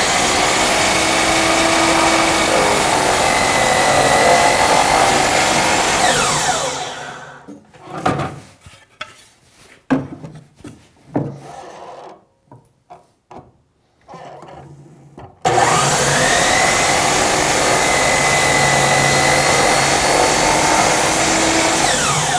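DeWalt sliding miter saw running and crosscutting a wooden skirt board to length, then winding down with falling pitch after the cut. Several seconds of scattered knocks and clicks follow, then the saw starts again for a second cut and winds down near the end.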